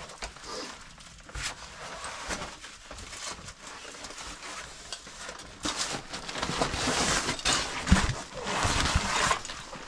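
Rustling and scraping of a nylon backpack being handled and passed down right against the microphone, with scattered knocks at first, growing louder in the second half and a single thump near the end.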